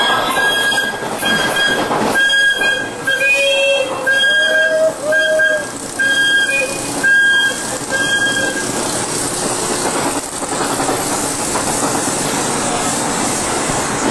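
Mine-train roller coaster running along its track, heard from the front seat. For the first eight seconds or so a short high squeal repeats a little more than once a second over the rumble of the wheels. After that a steady rush of wheel and wind noise remains.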